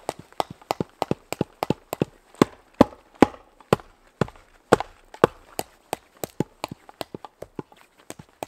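A buckler shield bashed again and again against a splintered wooden post: a rapid run of sharp knocks, about four a second, with a few slower, heavier blows in the middle.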